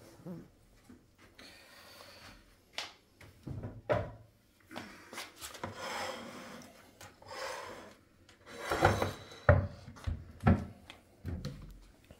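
Ceramic plates being slid and set down on a kitchen countertop: scattered light knocks and scraping rubs, with the loudest clatter and scrape about two-thirds of the way through.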